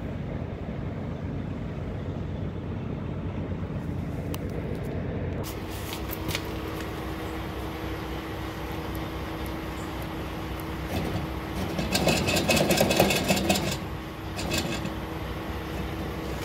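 A vehicle engine runs steadily, most likely the truck's diesel. About twelve seconds in there is a louder rattling stretch lasting a second or two.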